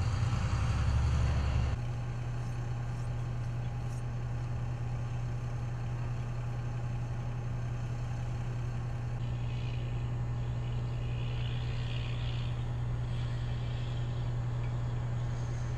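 A vehicle engine running with a steady low hum, louder for the first couple of seconds before settling to an even level.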